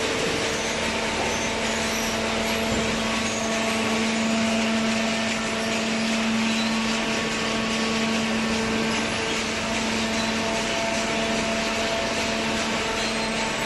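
Horizontal cardboard baler's electric motor and hydraulic pump running with a steady hum.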